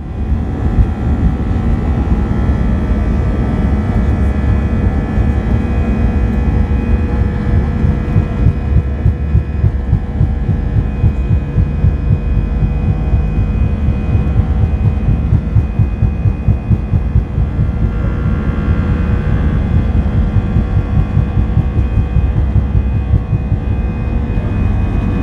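Airliner engines at high power heard inside the cabin during the takeoff run: a loud, steady rumble with a steady whine over it, and uneven bumps coming through from the runway.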